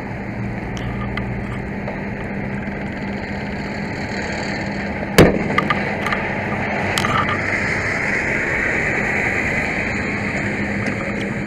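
Steady rushing noise with a low hum. About five seconds in comes a sharp knock, then a few lighter clicks, as the body-worn camera is bumped and handled.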